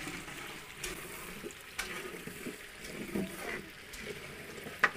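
A long metal ladle stirring thick gravy in a large aluminium cooking pot, giving a wet sloshing. A few sharp clicks of the ladle against the metal come through, the loudest near the end.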